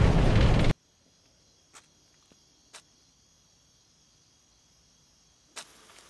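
Bus engine and road rumble, loud, cutting off abruptly under a second in. Then faint night ambience with crickets and a few soft clicks.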